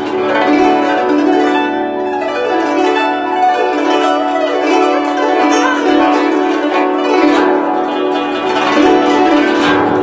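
Solo guzheng played fast, with dense plucked notes ringing over one another and a sweep across the strings every two seconds or so.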